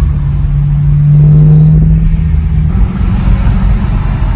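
Inside the cabin of a BMW E92 M3 on the move: the naturally aspirated 4.0-litre V8's steady low drone over tyre and road rumble. The hum swells a little about a second in, then gives way to a rougher rumble about three seconds in.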